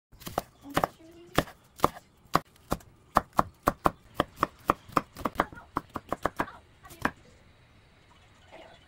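Chef's knife chopping on a bamboo cutting board, mincing green onion and then onion: sharp knocks of the blade on the wood, about two a second at first, quickening to about four a second, and stopping about seven seconds in.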